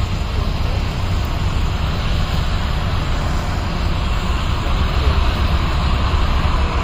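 A jet airliner's engines heard from a distance as it rolls along the runway: a steady rumbling roar that grows a little louder near the end.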